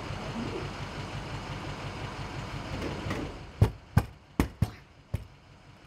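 A steady low rumble fades out about three seconds in, then five sharp knocks on a door: four quick, unevenly spaced raps and a last one a little apart.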